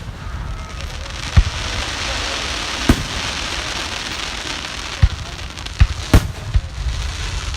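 Aerial fireworks bursting overhead: about six sharp booms at uneven intervals, over a steady crackling hiss that swells in the middle.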